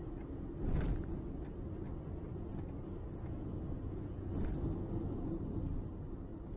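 Low, steady rumble of street traffic with a heavy lorry passing close, with a short louder bump about a second in.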